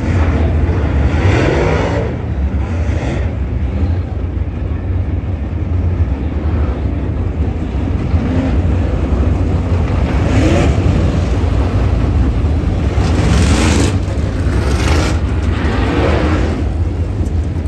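Dirt late model race cars passing one after another, each engine swelling and fading with a falling pitch, over a steady low rumble.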